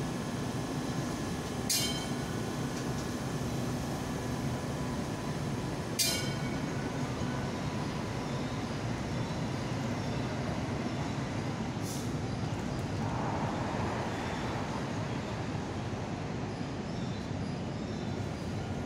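Hong Kong Light Rail Phase 1 car pulling away from the platform, with a steady rumble and a faint whine that fades over the first several seconds as it recedes. Two sharp clacks come about 2 and 6 seconds in.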